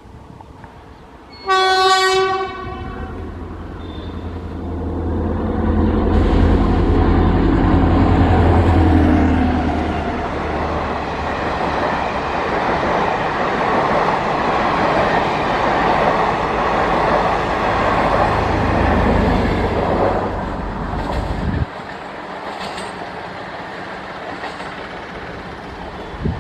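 Diesel-electric multiple unit train sounding one short horn blast, then its diesel engine powering up as it pulls away from the platform, building to a loud steady rumble. The loud rumble drops away suddenly near the end, leaving a quieter running sound.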